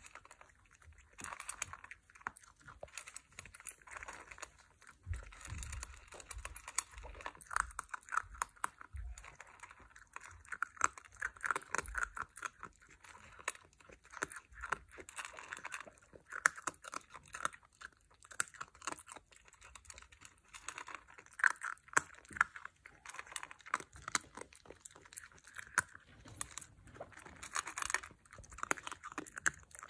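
A Basenji eating dry kibble from a stainless steel bowl, with many rapid, irregular crunches as she chews.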